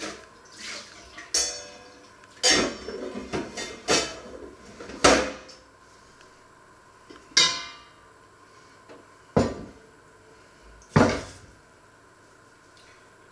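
Metal pots, pans and utensils clattering and clinking as they are handled at a kitchen sink: about ten separate knocks, a few of them ringing briefly.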